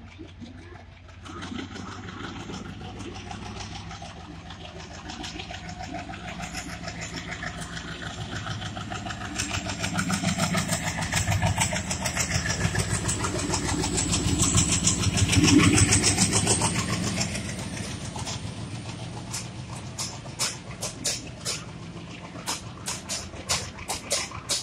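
WDG-3A diesel-electric locomotive with its ALCO 16-cylinder turbocharged engine working hard as it accelerates through the station, growing louder as it approaches and passes and loudest about two thirds of the way through. After it passes, the coaches' wheels clack over rail joints in a run of sharp clicks near the end.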